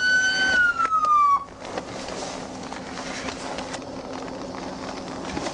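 Police car siren wail holding a high tone, then sliding down and cutting off about a second and a half in. After that only a low, steady hum and background noise remain.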